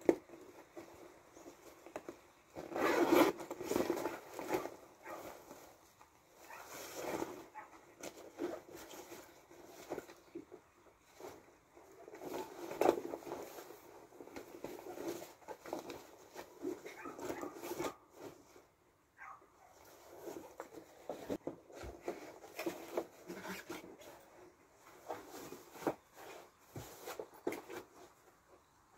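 A fabric duffel bag being handled: the cloth rustles and the zipper and straps rattle in irregular bursts, loudest about three seconds in and again near the middle.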